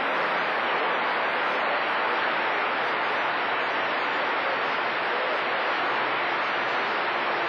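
CB radio receiver putting out steady static hiss on an open channel, with no station coming through.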